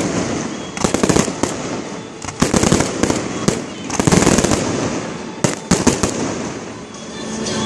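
Aerial fireworks show in a dense barrage. Many sharp bangs come in quick clusters: about a second in, between about two and a half and three and a half seconds, and again around five and a half seconds. The noise of the bursts hardly drops in between.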